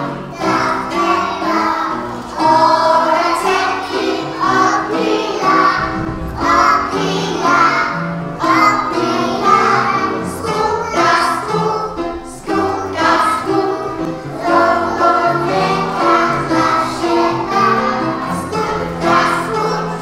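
A group of small children singing a song together in chorus, with piano accompaniment.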